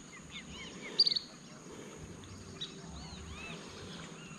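Birds calling, a scatter of short arching chirps, with one sharp, loud burst about a second in.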